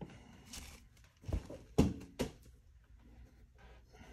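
Handling noise from a bolt-action rifle and its leather sling: three sharp knocks and clicks, about a second, a second and a half and two seconds in, between faint rustling.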